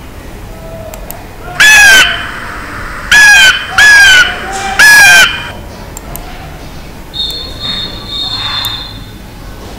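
Four loud, harsh bird calls, each about half a second long and falling in pitch at the end, played back as a sound effect. A faint steady high tone follows for about two seconds.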